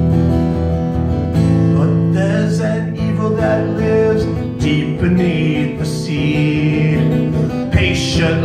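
Acoustic guitar strummed in steady chords, changing chord a few times, as the accompaniment of a folk-style song.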